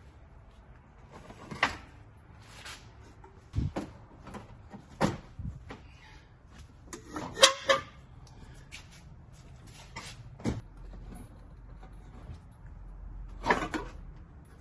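Scattered metallic knocks and clanks of tools and parts during work under a car, about six in all, the loudest about halfway through with a brief ring.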